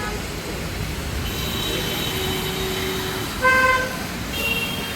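Busy city road traffic with vehicle horns honking: thin high horn tones over the steady traffic noise, and one short, loud horn blast about three and a half seconds in.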